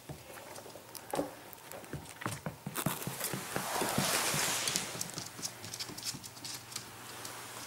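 English Springer Spaniel puppy's claws clicking on a hard floor as it scampers about, in quick irregular steps. A louder rustling noise comes up about four seconds in.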